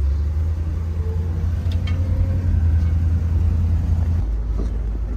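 Steady low rumble of a 1960 Edsel Ranger convertible driving with the top down, engine and road noise heard from inside the car; the rumble eases a little about four seconds in.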